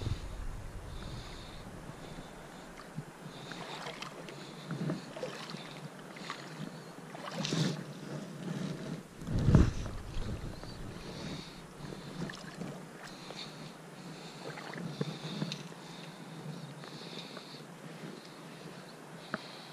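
Fly line being stripped in by hand, a series of short soft hisses, over a steady wash of river noise. Two louder knocks come about midway.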